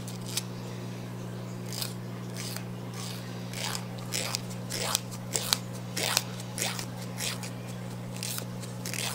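Emery board rasping against a white-faced capuchin monkey's toenails in short, irregular strokes, about one or two a second, over a steady low hum.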